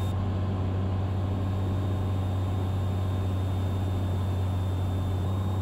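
Cessna 182T's six-cylinder Lycoming engine and propeller droning steadily in flight, a low even hum that holds one pitch throughout.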